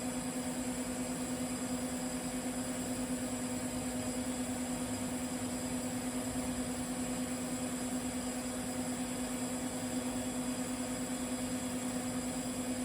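TIG welding arc running steadily: a constant buzzing hum with a thin high hiss over it.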